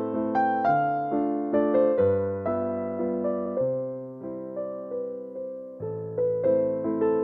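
Background music: a gentle piano playing chords and a melody, notes struck about twice a second and left to fade.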